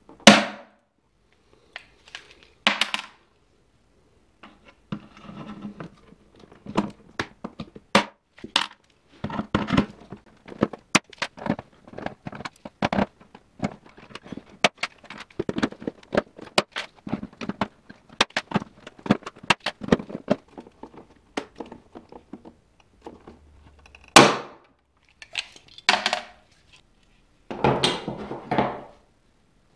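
Hand pop-rivet tool setting rivets in a seat pan: a run of irregular squeezing clicks and sharp snaps as the tool is worked and the rivet mandrels break. A rattling clatter near the end as loose rivets are handled.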